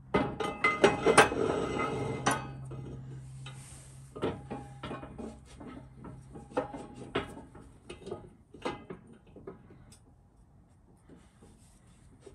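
Heavy steel press plates and an axle shaft clanking and scraping against the steel bed of a hydraulic shop press as they are shifted into position: a dense clatter of metal knocks over the first two seconds, then scattered single clinks.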